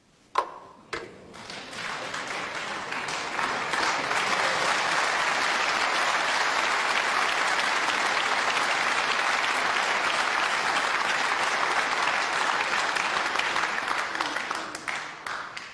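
Two sharp clicks of snooker balls, about half a second apart, then an audience applauding that builds over a few seconds, holds steady and dies away near the end.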